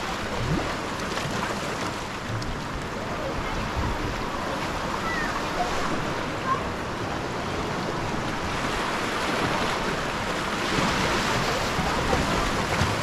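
Ocean surf washing in as a steady rush, swelling louder about ten seconds in.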